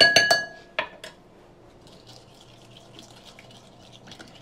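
A utensil strikes a bowl in a quick run of ringing clinks, with two more clinks about a second in, then a soft scraping and stirring as a seasoning coating for baked potatoes is mixed.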